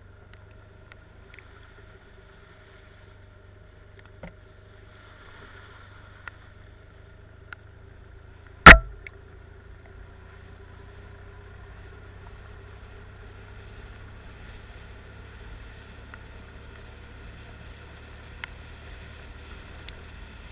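Motorcycle engine running steadily at trail speed, with a few light clicks and one sharp, very loud knock about nine seconds in.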